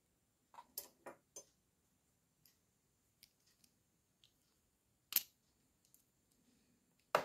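Small plastic clicks from handling an electric kettle's switch block while a screwdriver probes it: a quick run of about four clicks shortly after the start, one sharper click about five seconds in, and a louder clatter at the very end.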